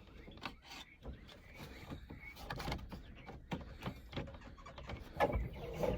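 Scattered light clicks and knocks of parts and tools being handled while taking the shifter assembly apart, with a louder clatter about five seconds in.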